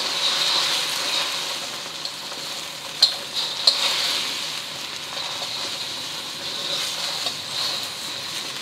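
Beaten eggs frying in hot oil in a wok: a steady sizzle that slowly eases, with two sharp clicks about three seconds in.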